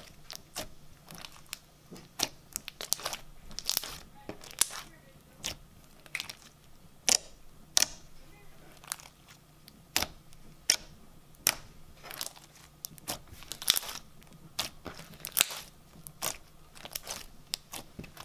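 Hands squishing and pressing a thick foam-bead slime: irregular sharp crackles and pops, a few a second, from the beads and air pockets.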